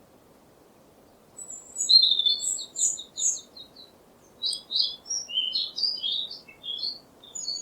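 A songbird singing over a faint background hiss. After about a second and a half it starts a fast run of high chirping notes, then goes on with a string of separate high notes.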